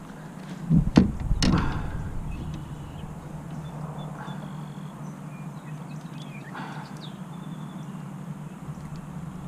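Knocks and thuds against a plastic kayak hull as a small bass is swung aboard about a second in, then quieter handling noise while it is unhooked, over a steady low hum with a few short high chirps.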